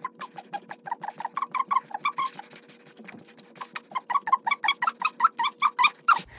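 A person's voice sped up in fast-forward during a set of push-ups, turned into rapid, high-pitched chirps about five a second, with a short pause in the middle.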